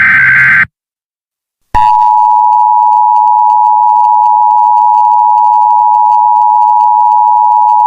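Emergency Alert System tones: the last of the three SAME data-header bursts, a harsh screeching warble lasting under a second, then after about a second of silence the loud, steady two-tone EAS attention signal comes on and holds.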